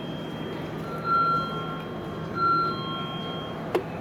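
Electronic two-note chime on a railway station platform, a higher note stepping down to a lower one, repeating about every second and a half over the steady hum of the station. A single sharp click near the end.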